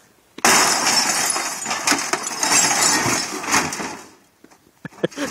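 The glass of an old television shattering under a blow, then breaking glass and debris crashing and clinking for about three seconds before dying away, with a few small clinks near the end.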